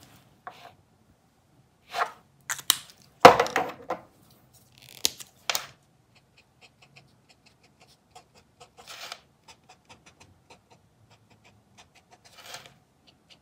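Acrylic brush-tip marker pens being handled, with several sharp plastic clicks and knocks, the loudest a little over three seconds in. Then come many faint quick ticks as a brush-tip marker dabs paint onto a black cardboard box lid.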